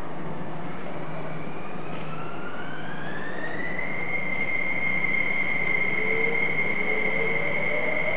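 Traction inverter whine of a Kawasaki-built SP-1900 electric train starting off. A tone climbs over about three seconds, then holds high and steady, over a steady low hum. About six seconds in, a second, lower tone begins to rise as the motors take power.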